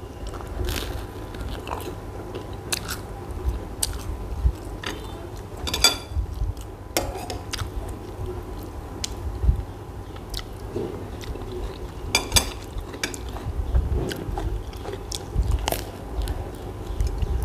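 Close-up eating of crusty bread: bites, crunching and chewing, irregular through the whole stretch, with a few sharper clicks about six and twelve seconds in.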